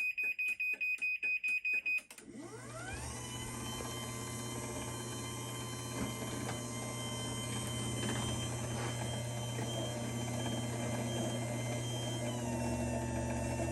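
LiftMaster garage door opener beeping rapidly, about five beeps a second, then its motor starting with a rising whine and running the door steadily with a hum. Near the end the pitch drops slightly as the motor slows.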